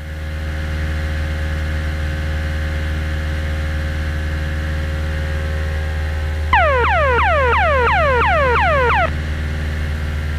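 Cessna 172's piston engine droning steadily in the cockpit. Just past halfway, an emergency locator transmitter alarm sounds for about two and a half seconds as a rapid run of falling tones, about four a second, then cuts off: the ELT was set off by an accidental press of its button with a gloved hand and switched off again.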